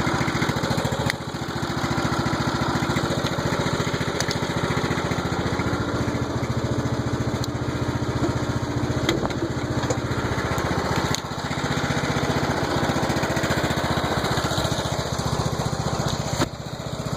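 Troy-Bilt riding mower's engine running smoothly and evenly after a rebuild with its valves adjusted, with a few brief dips in level, about a second in, around the middle and near the end.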